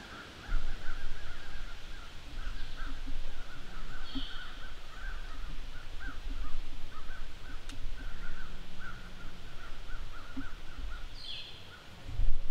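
Birds calling in a long, rapid run of short harsh notes, with two brief higher calls, one about four seconds in and one near the end, over a steady low rumble on the microphone.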